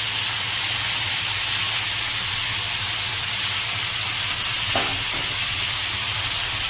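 Sliced onions sizzling in hot oil in a pan, a steady hiss, with one short utensil knock against the pan about two-thirds of the way through.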